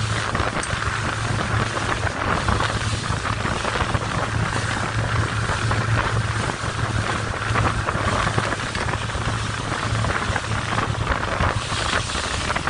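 Motor yacht running under way: a steady engine drone under the rush of wind and water spray, with wind buffeting the microphone.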